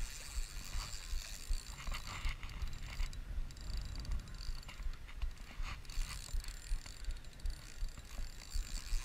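Spinning reel being cranked, its gears whirring and clicking as a hooked fish is reeled in on a bent rod, over a low rumble.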